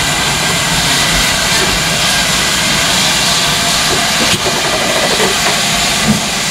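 Steam locomotive 6023 King Edward II, a GWR King class 4-6-0, hissing steadily as steam blows from its open cylinder drain cocks while it moves slowly forward.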